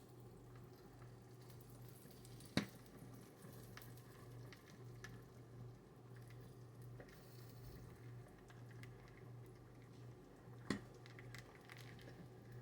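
Motorised popcorn popper with the popping nearly over: its stirring motor runs with a faint low hum while two last kernels pop, one about two and a half seconds in and one near the end.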